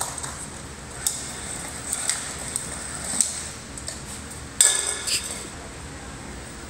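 Dishes and cutlery clinking in a dishwasher rack as a robotic arm handles them: a few light clinks, then a louder ringing clatter about four and a half seconds in.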